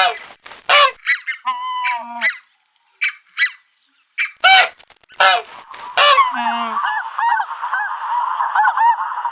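Domestic geese honking: a run of separate loud honks for about six seconds, then many geese calling over one another in a continuous flock chorus.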